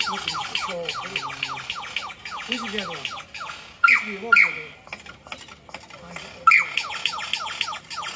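Male superb lyrebird singing in display, mimicking laser-gun-like "pew pew" sounds. It begins with a fast run of falling whistled notes, then gives two pairs of loud short calls, the first about four seconds in and the second later on.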